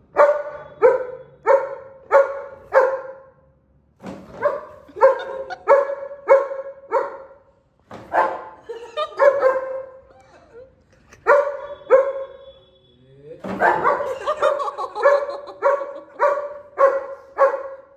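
German Shepherd barking at a person in runs of loud, pitched barks, about two a second, with short pauses between runs. The barks come thicker and closer together over the last few seconds.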